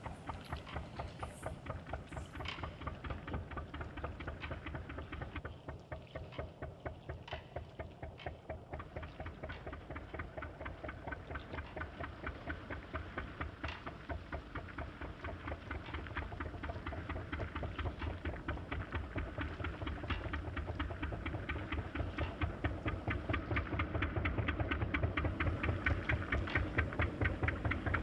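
Performance soundtrack over loudspeakers: a rapid, steady, machine-like pulsing with a heavy low end, growing gradually louder over the second half.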